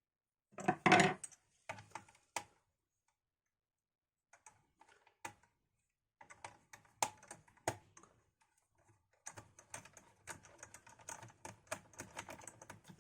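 Small sharp clicks and rattles of a screwdriver and tiny screws against a laptop's plastic bottom case while the screws are removed, with a louder clatter about a second in and quicker, denser clicking near the end.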